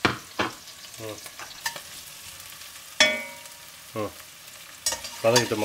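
Chopped red onions and green chillies sizzling in oil in an enamelled cast-iron pot as they are stirred, with several knocks and scrapes against the pot. The loudest knock, about three seconds in, rings briefly.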